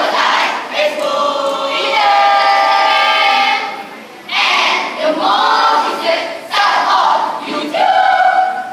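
A school choral speaking team of many voices in unison, chanting and singing in several phrases with long held notes and short breaks between them. The voices stop just before the end.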